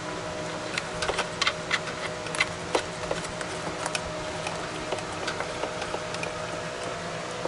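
Light clicks and taps of plastic and metal parts as a projector and its shroud are handled and fitted inside an opened headlight housing, thickest in the first few seconds, over a steady background hum.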